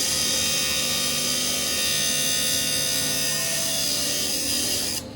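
A power tool running steadily, giving a high-pitched whine with a hissing edge, then stopping abruptly about five seconds in.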